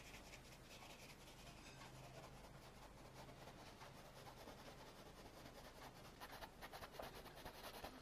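Faint rubbing and scratching of a small worn synthetic brush stroking and blending paint on canvas, with quicker, slightly louder strokes in the last couple of seconds.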